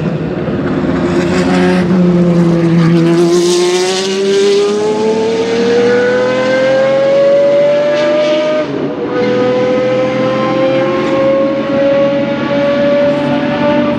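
Group C prototype race car engine under hard acceleration, its note climbing steadily for several seconds, dropping briefly about nine seconds in as it shifts up a gear, then climbing again.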